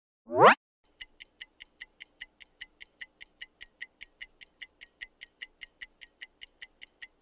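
A quick rising swoosh sound effect, then a quiz countdown timer's ticking sound effect: evenly spaced sharp ticks, about five a second, while the time to answer runs out.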